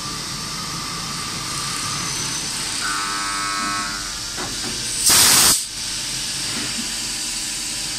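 CNC machine running steadily with a high-pitched whine, a brief steady tone about three seconds in, and one short, loud hiss just after five seconds.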